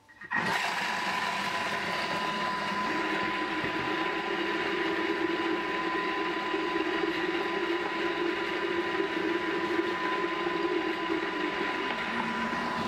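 Vorwerk Thermomix TM6 running at speed 5 to mix a thick puréed vegetable paste. A steady motor drone with a thin high whine, starting up a moment in.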